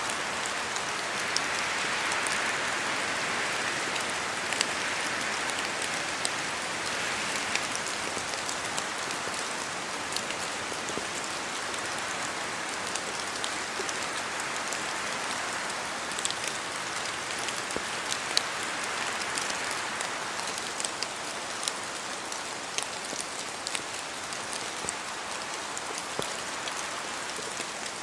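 Steady rain falling in a forest, a continuous patter with many distinct drops ticking sharply among it; the wash swells slightly in the first few seconds and eases a little after the middle.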